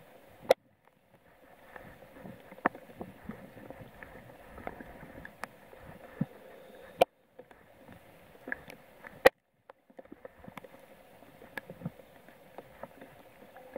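Irregular sharp ticks and light knocks on a plastic kayak over a soft background of water and light rain, with the loudest clicks coming about every two seconds.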